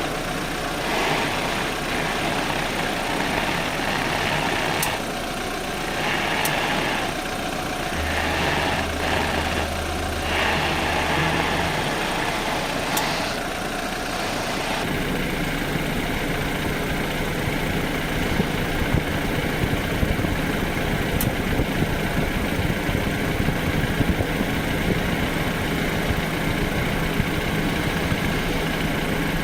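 BMW F10 with its engine running and a ticking from the right front wheel as the steering is turned to the right. The sound changes about halfway through, after which rapid sharp ticks come through over the engine.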